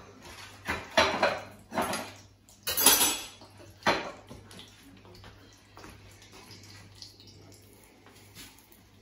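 Plates, small bowls and cutlery clattering as they are handled on a kitchen counter, with about four loud clatters in the first four seconds and quieter handling after. A steady low hum runs underneath.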